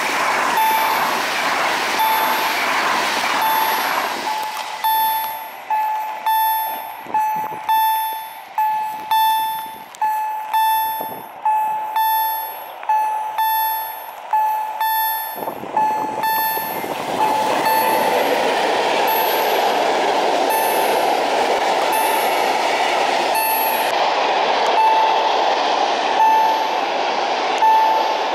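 An electric freight train passes as a warning bell rings over and over, about three strokes every two seconds. From about halfway through, the passing hopper wagons add a loud, steady rolling noise.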